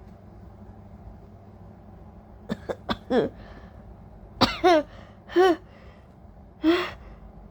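A woman coughing: a few short, sharp catches of breath, then four loud, hard coughs in quick succession in the second half.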